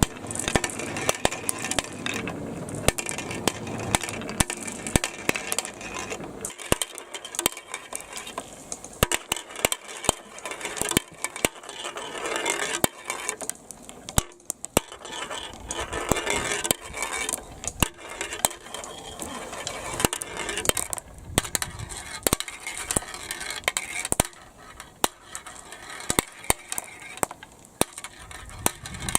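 Plastic balls clicking and clattering in quick, irregular runs as they roll down a twisting marble-run track, over a steady hiss of running water.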